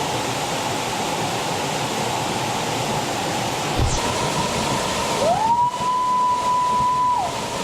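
Steady rushing of a waterfall. About five seconds in, a clear whistle-like tone rises, holds for about two seconds and drops away, with a brief low knock a little before it.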